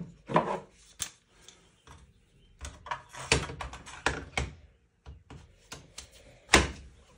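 Clicks and knocks of hands handling a PTR91 rifle and its newly fitted Spuhr stock. There is a quick run of clicks a few seconds in and one sharp knock near the end.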